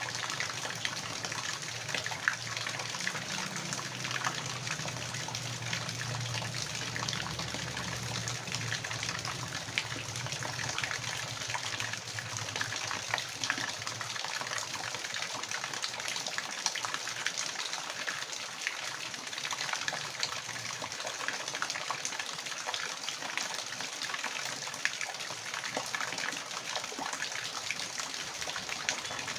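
Water running steadily in a continuous rushing gush, with small splashes and spatters through it. A low hum sits underneath for the first half and then fades.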